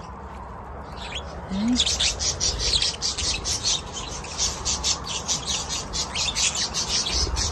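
A flock of budgerigars chattering, rapid high chirps coming thick and fast from about a second and a half in.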